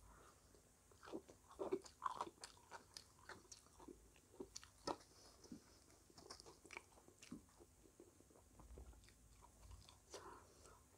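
Close-up crunching and chewing of crisp fried samosa pastry, a quick run of sharp crunches loudest in the first few seconds, then sparser, softer chewing.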